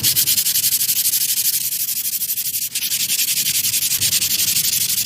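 Car brake pad rubbed back and forth on sandpaper: a dry, gritty hiss in rapid, even strokes, several a second. The sanding grinds off hard spots on the pad's friction surface that were rubbing against the brake disc and causing the noise when braking.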